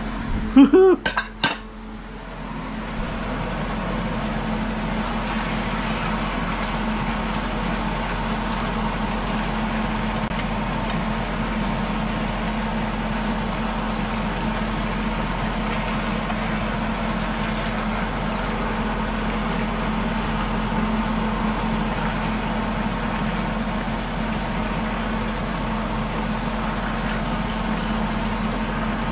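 A few clinks of a utensil against a skillet, then meat and shrimp in sauce sizzling and simmering in the pan: a steady even hiss that builds over the first few seconds and holds, over a low steady hum.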